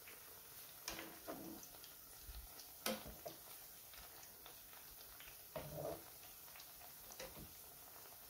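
Potato pakoras sizzling in hot oil in a frying pan, with a few clinks and scrapes of a wire-mesh skimmer against the pan as they are turned. The sharpest clink comes about three seconds in.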